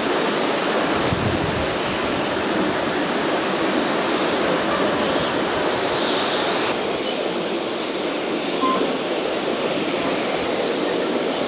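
Steady rush of a steam-hauled passenger train heard from an open carriage window: wind and rolling wheels, with the double-headed steam locomotives working ahead. The higher hiss drops away a little about two-thirds of the way in.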